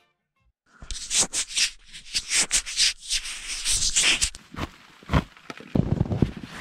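Sleeping bag fabric rustling and scraping as it is handled and shifted about, in quick irregular strokes, with a few softer, duller bumps near the end.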